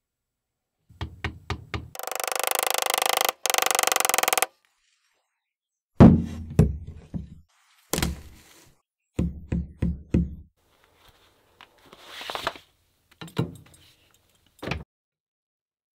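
Workshop handling sounds at a wooden workbench. A few light clicks are followed by a couple of seconds of steady scraping. Then comes a series of dull thunks and knocks as tools and pieces are set down and handled on the bench, with a brief rustle and two last knocks near the end.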